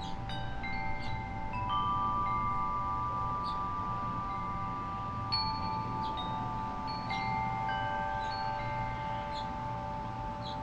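Wind chime ringing as the breeze moves it: several notes struck at uneven times, each ringing on for seconds and overlapping the next, with a sharper strike about five seconds in, over a low steady rumble.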